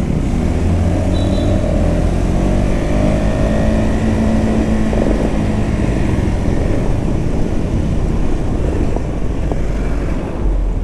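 Motorcycle engine running while under way, with heavy wind rumble on the microphone. A pitched engine tone climbs slightly and holds for a few seconds in the middle.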